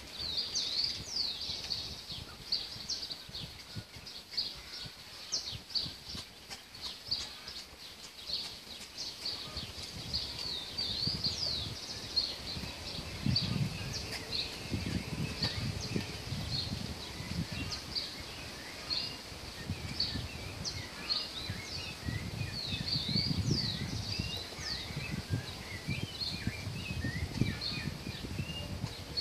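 Small birds chirping and calling over and over, many short quick high notes, with patches of low rumbling a little past the middle and again near the end.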